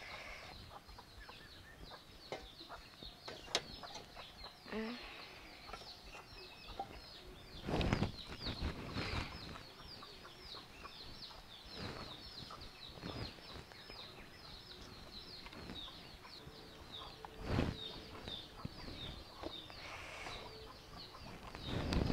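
Birds chirping continually, many short high calls, with a few knocks and clatters from the round steel cake pot and steel plate being handled as the cake is turned out. The loudest knocks come about eight seconds in and again around seventeen seconds.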